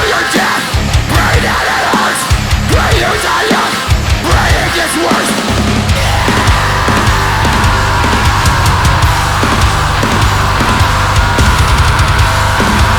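Heavy metal band playing an instrumental passage with distorted guitars and drums: a stop-start chugging riff with gaps, giving way about six seconds in to a steady full-band section with a held high guitar line.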